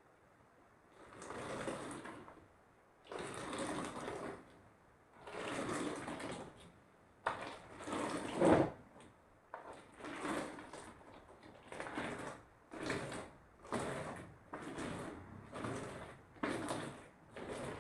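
Slime being squished and stretched by hand in repeated wet squelches. The first few are long, about every two seconds, and later they come shorter and quicker, roughly one a second.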